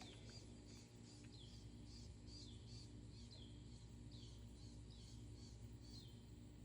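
A bird calling faintly and repeatedly: short high chirps, each falling in pitch, about once or twice a second, over a low steady background hum.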